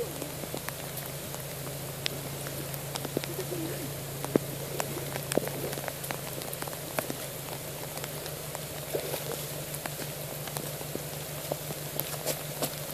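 Steady rain falling on vegetation and muddy puddles, with scattered sharp drop taps.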